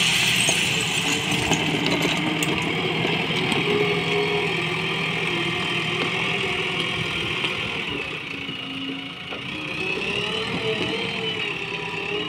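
Diesel engine of a JCB 3DX backhoe loader running under load while it works the front loader bucket, its pitch rising and falling with the throttle.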